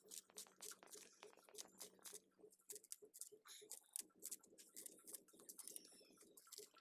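Faint, irregular clicks and snaps of pea greens being cut and cleaned by hand, over a faint steady low hum.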